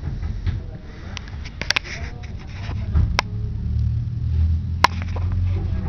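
A large wooden drawer in a wardrobe's TV unit being pulled open, sliding out with a low rumble in the second half, with several sharp clicks and knocks.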